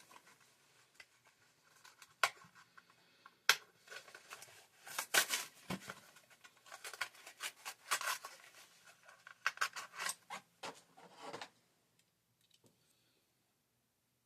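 A die-cast toy car's blister pack being opened by hand: crinkling and scraping of plastic and cardboard, with a few sharp clicks, stopping about twelve seconds in.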